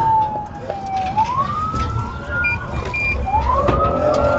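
Police car siren wailing. Its pitch slides down, sweeps back up about a second in, then dips and climbs again near the end, over a low rumble of engine and road noise, with a few short high beeps midway.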